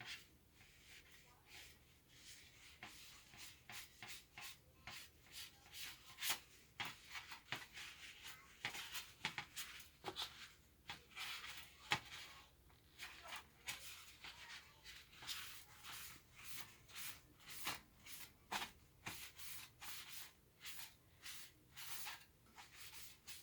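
Faint, irregular short rubbing strokes and light clicks from hands working on an opened MacBook Pro: brushing, wiping and handling its parts.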